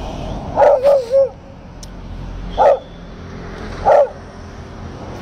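A beagle barking: three quick barks about a second in, then two single barks spaced more than a second apart.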